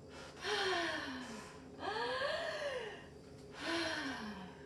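A woman's breathy, voiced gasps: three in a row, each about a second long with one sliding pitch, the hard breathing of someone working through a strenuous spine-and-pelvis movement.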